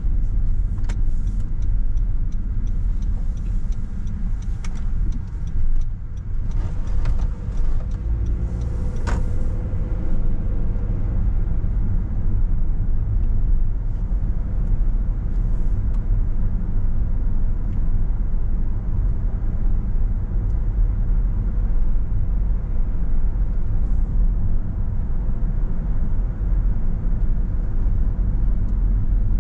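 A car being driven: a steady low rumble of tyres and engine, with scattered light clicks and ticks in the first ten seconds or so.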